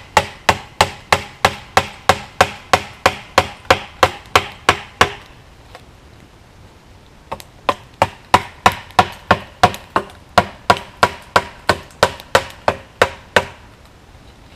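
A hatchet hammering a green wooden wedge into a hickory log to split it, at a steady rate of about three blows a second. The blows stop for about two seconds in the middle, then start again and stop near the end.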